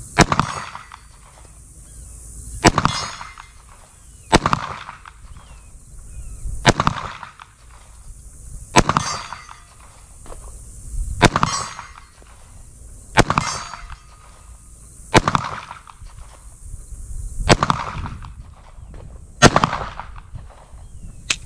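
Slow, aimed handgun fire: about ten to eleven single shots, roughly two seconds apart, each sharp report followed by a short ringing tail.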